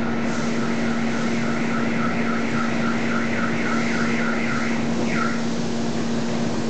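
Steady low machinery hum of a factory floor, with a quick run of high squeaky chirps, about four a second, for around four seconds, ending in a single falling chirp.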